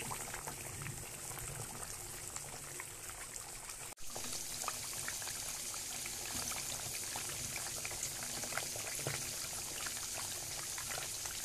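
Khlii (dried seasoned meat) boiling hard in fat in an aluminium pot, stirred with a wooden spoon: a steady bubbling sizzle full of small pops and crackles. The water has nearly boiled off and the meat is starting to dry out in the fat. The sound cuts out for an instant about four seconds in, and the hiss is brighter after that.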